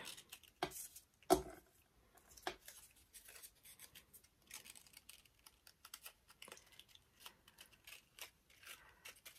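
Paper petals rustling and crinkling faintly as they are handled and pressed onto a paper rose, with scattered small clicks and taps; the sharpest tap comes about a second in.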